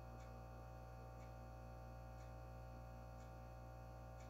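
Near silence: room tone with a steady low electrical hum and faint ticks about once a second.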